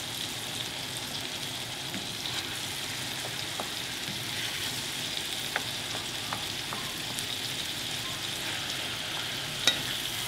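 Meat sizzling as it fries in a pan on the stove, stirred and broken up with a utensil. Light taps of the utensil on the pan, with one sharper clack near the end.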